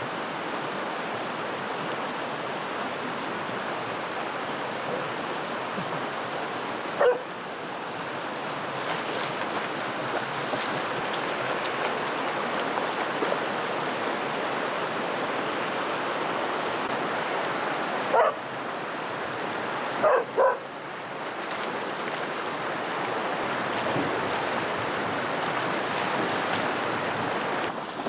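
Creek water rushing steadily, with a dog giving short barks: one about 7 seconds in, one about 18 seconds in, and a quick pair about 20 seconds in.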